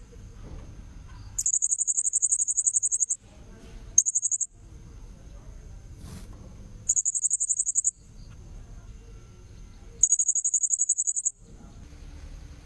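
Blue-crowned hanging parrot (serindit) calling: four loud bursts of rapid, shrill, very high notes, each lasting half a second to nearly two seconds, with pauses between them. A faint steady high whine runs underneath.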